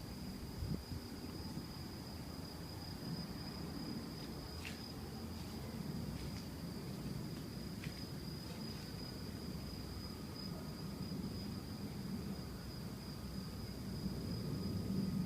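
A steady low rumbling drone, the kind of mysterious 'strange sound' recording said to be heard in the sky, with a continuous thin high-pitched insect-like whine over it. A few faint short chirps come about five and eight seconds in.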